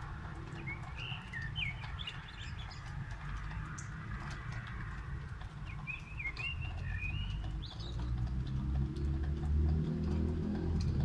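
Steady rain hiss with scattered drips, over which a small bird chirps in two short bursts. A low engine hum builds up and grows louder from about eight seconds in.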